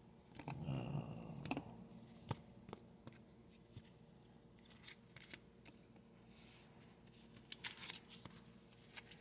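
Faint handling of trading cards: a brief rustle about half a second in, then scattered light clicks and ticks as cards are moved and set down.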